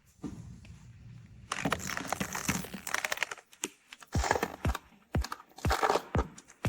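A crinkling, rustling noise, then electronic background music with a steady kick-drum beat of about two thumps a second, starting about four seconds in.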